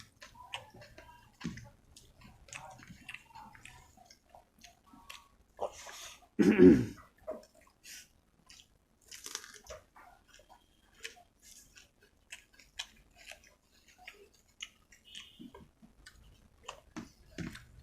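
Close-miked chewing of rice, chicken and gravy: many small wet mouth clicks and smacks. About six and a half seconds in there is one much louder mouth sound lasting about a second.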